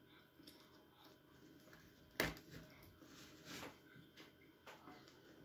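Faint chewing of a mouthful of chicken liver, mouth closed, with one short click about two seconds in.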